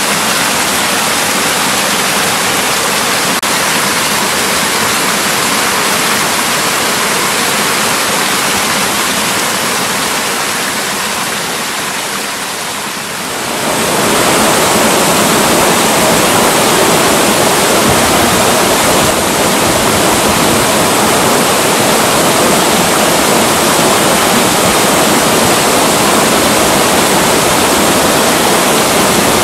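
Mountain valley stream rushing over rocks in a steady, dense wash of water noise. About thirteen seconds in it dips briefly, then comes back louder and fuller, with more low rumble.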